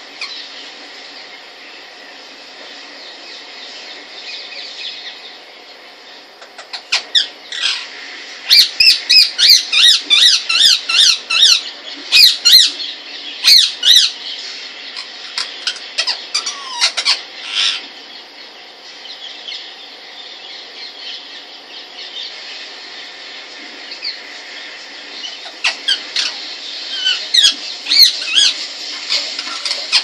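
Indian ringneck parakeet calling in fast runs of loud, high-pitched squawks, about three or four a second. There is a long bout from about a quarter of the way in to about halfway, and a shorter one near the end, over a steady background hiss.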